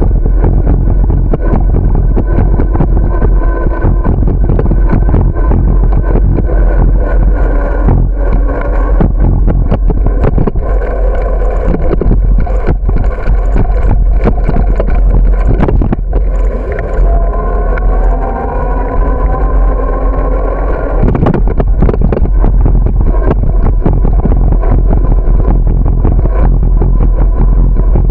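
Loud wind buffeting and rumble on the microphone of a bicycle-mounted camera while riding, with frequent knocks and rattles from the bike on the sidewalk.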